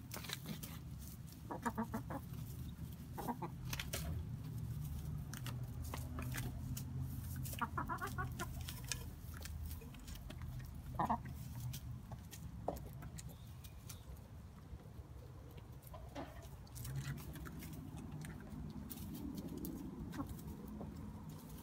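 Backyard hens clucking in short calls while they feed, over a scatter of sharp taps as they peck at food in the straw.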